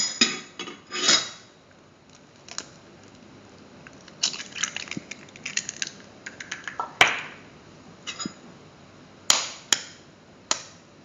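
Two eggs being cracked on the rim of a bowl: sharp knocks of shell against the bowl, with a run of small clicks and crackles as the shells are broken and pulled apart.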